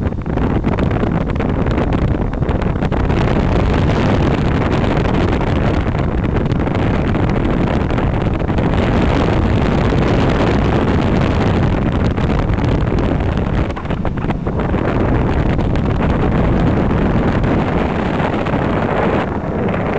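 Loud, steady rush of in-flight airflow buffeting the microphone of a camera carried on a paraglider, heaviest in the low rumble, dipping briefly about fourteen seconds in.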